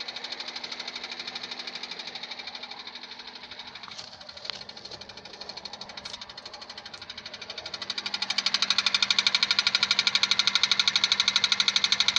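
Honda Civic 1.7 four-cylinder engine running with a fast, even ticking knock over its steady hum; the knock gets clearly louder about eight seconds in. It is an engine noise whose cause is unknown.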